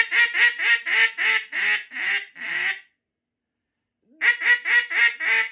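Acrylic Big Bore mallard duck call blown in a run of about ten quacks, about four a second, getting quieter as it goes; this is calling softer as the ducks descend and get lower. After a pause of over a second, a second run of quacks begins near the end.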